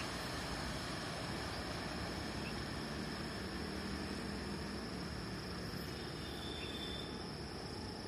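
Freight train rolling away into the distance: a steady, faint rumble of wagons on the rails that slowly fades.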